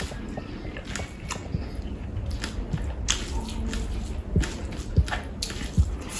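Kitchen work sounds: irregular clicks, taps and a few soft knocks, with some wet squishing, as food is handled and prepared.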